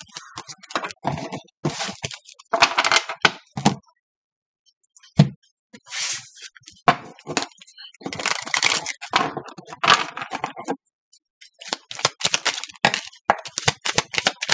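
A deck of tarot cards being shuffled by hand, rustling and crackling in bursts with a short pause about four seconds in.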